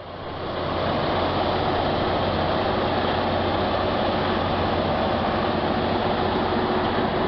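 Heavy-truck diesel engine idling steadily, fading in over the first second.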